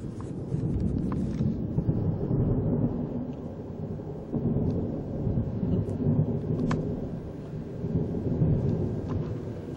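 Low rolling rumble of thunder from a summer thunderstorm, swelling and easing several times.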